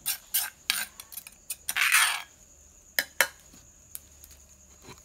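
Metal spoon clinking and scraping against an aluminium pot as a chopped mixture is stirred: a quick run of clinks and a short scrape in the first two seconds, then two more clinks about three seconds in.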